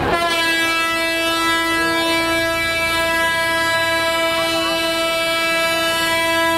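Truck air horn sounding one long, steady blast on a single pitch.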